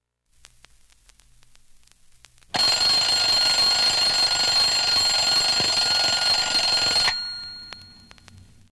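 Alarm clock ringing loudly for about four and a half seconds. It starts suddenly after a few faint clicks, then stops and dies away.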